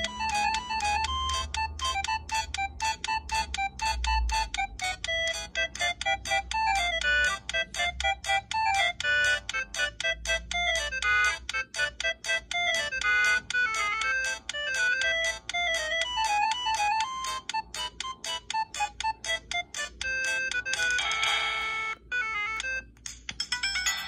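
Preloaded polyphonic MIDI ringtone playing from a Huawei CM295 mobile phone's small speaker: a fast electronic tune of quick, evenly repeated short notes over a melody line. Near the end it breaks into a short noisy burst, goes briefly quiet, and a different tune begins.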